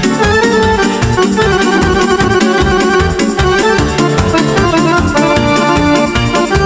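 Instrumental break in a Hungarian mulatós song played on an arranger keyboard: an organ-like lead melody of held notes over a steady beat with bass.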